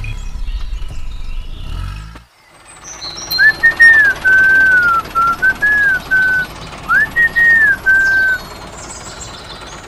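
A short whistled tune of gliding notes in two phrases, over a steady hiss. Before it, about two seconds of low rumble that cuts off.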